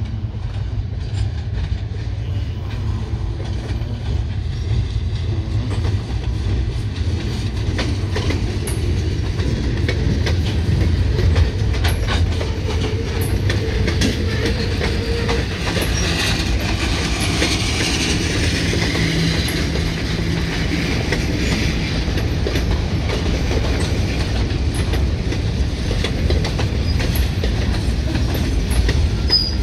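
Freight train's cars rolling past on the adjacent track: a steady low rumble with the wheels clicking over the rail joints.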